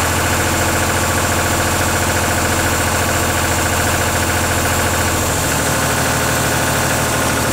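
UTB 445 DTC tractor's diesel engine idling steadily, with a fast, even exhaust beat; its note shifts slightly about five seconds in.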